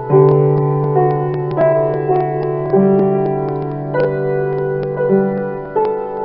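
Piano playing a slow Christmas carol arrangement: melody notes struck every half second to a second over held low bass notes that change every couple of seconds.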